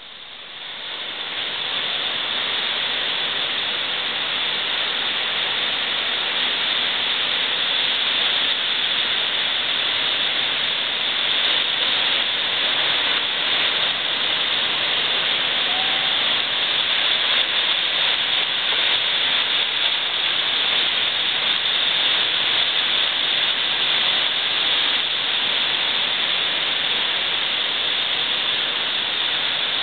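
Ocean surf breaking and washing up the beach: a steady rushing hiss that swells in over the first couple of seconds.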